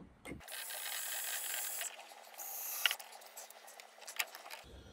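DeWalt cordless drill drilling out a rivet: it runs for about a second and a half, then again briefly, followed by a few light clicks.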